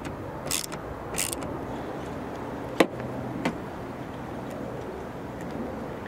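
Ratcheting screwdriver backing out a Torx screw from a plastic tailgate panel: short ratcheting bursts in the first second and a half, then a sharp click near the middle and a lighter one about half a second later, over a steady low background noise.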